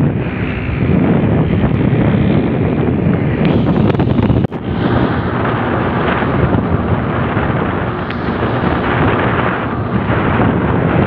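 Strong wind buffeting the phone's microphone: a loud, steady rushing rumble that breaks off for an instant about four and a half seconds in.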